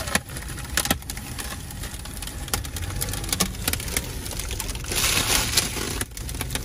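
Crumpled plastic window-tint film crinkling and crackling as it is handled and peeled from the glass, with a louder burst of crinkling about five seconds in, over the steady low rumble of the car cabin.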